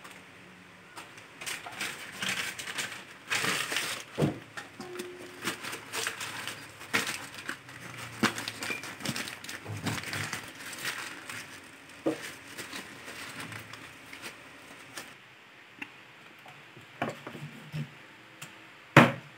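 Plastic bags crinkling and rustling as they are handled, dense and irregular for the first dozen seconds. After that come only a few scattered sounds as a knife cuts raw chicken on a chopping board.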